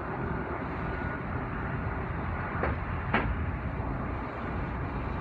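Steady low mechanical rumble of heavy machinery, with two short sharp knocks a little past the middle.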